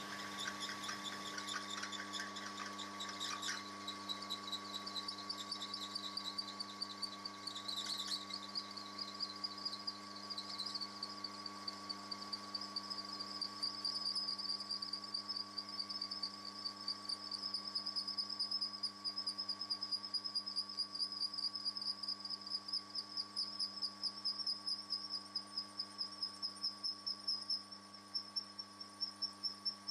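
8.4 mm twist drill cutting into an aluminium V-twin cylinder head, heard as a high squealing whine that pulses rapidly and creeps slowly up in pitch, over the steady hum of the machine's motor.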